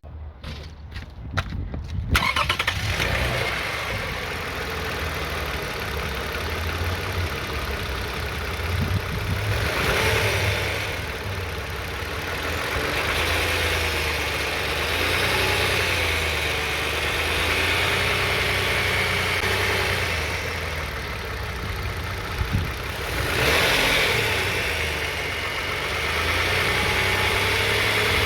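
2009 Toyota Sienna's V6 engine running near idle, its speed wavering a little, with two brief rises in engine speed, about a third of the way in and near the end. It has a buzzing rattle around 1000 RPM that the owner suspects comes from the flex plate, torque converter or transmission pump.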